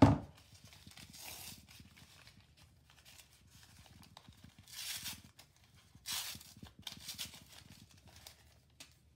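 Scissors set down on a wooden tabletop with a sharp knock at the start, then thin paper wrapping being pulled open and torn off a small package by hand, crinkling and rustling in several short bursts.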